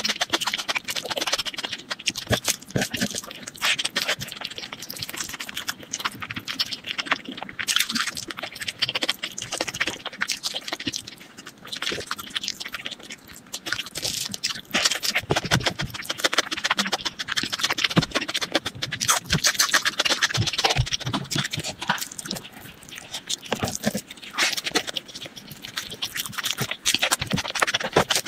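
Close-miked ASMR eating sounds: a dense, irregular run of wet clicks and smacks from someone chewing food.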